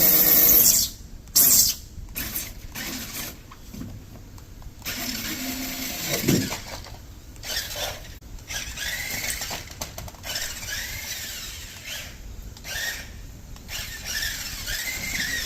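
Remote-control toy car driving over polystyrene: its electric motor whines up and down in short bursts, with squeaking and scraping, and loud noisy bursts in the first second or so.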